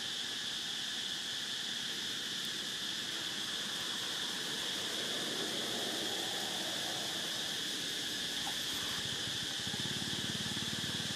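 Steady high-pitched insect chorus droning without a break, over a faint even hiss.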